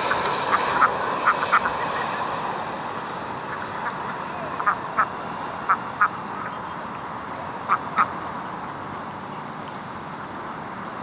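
Jet engines of an Airbus A319 on final approach, a steady rush that slowly fades as the airliner flies away. Over it come short calls, mostly in pairs, quack-like and repeated every second or two.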